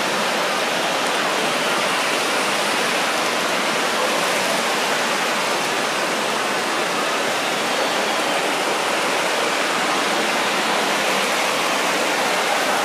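A steady, even rushing hiss that holds at one level throughout, with no tones, rhythm or separate knocks in it.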